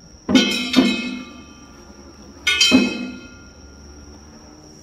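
Struck metal percussion with a ringing clang: two strikes in quick succession, then another pair about two seconds later, each leaving a high ringing tone that hangs on between them.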